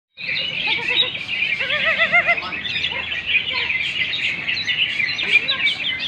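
Many caged green leafbirds (cucak ijo) singing at once: a dense, continuous chorus of fast, high chirps and trills, with a short run of wavering lower notes about two seconds in.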